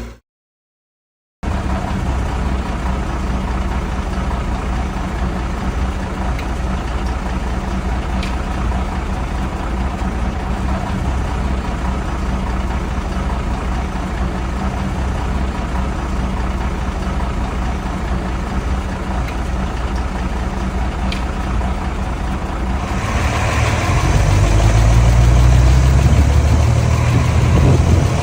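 Mini bulldozer's diesel engine running steadily after a brief silence at the start. Near the end it gets louder and deeper, as if put under load.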